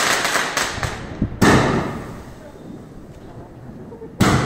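Fireworks bursting in the sky: the crackle of a glittering spark shower dying away, then a sharp bang about a second and a half in and another near the end.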